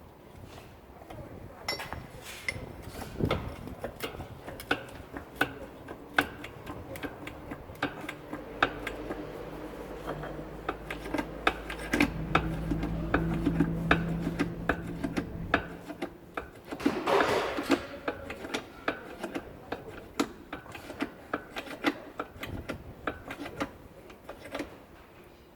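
Repeated metallic clinks and taps of hand tools on a tractor's front axle while the tie rod end ball joint is being worked loose. A steady low hum runs underneath for several seconds in the middle, and there is a short rushing burst a little after it stops.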